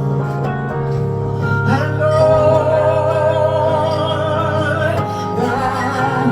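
Gospel praise-and-worship music performed live: a singer holds long notes with a wavering vibrato over steady, sustained instrumental chords.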